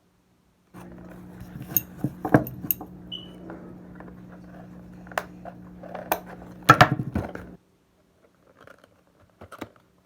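Sharp plastic clicks and knocks as a toy dart blaster and its foam darts are handled, the loudest clatter coming twice, over a steady low hum that starts about a second in and cuts off suddenly near the end.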